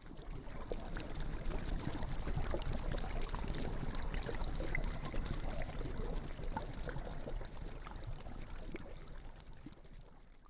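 Low, steady water and boat noise with scattered faint crackles, fading away about nine seconds in.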